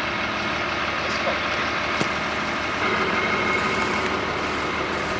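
M35A3 Deuce and a Half truck's diesel engine running steadily, with a faint high whine joining about three seconds in.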